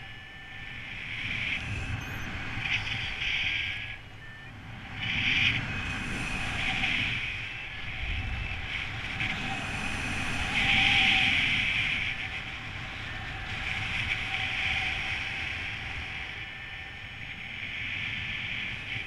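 Wind rushing over the microphone during a paraglider flight, with a paragliding variometer giving high electronic beeps that come in swells every second or two, the sound a vario makes when the glider is climbing in rising air.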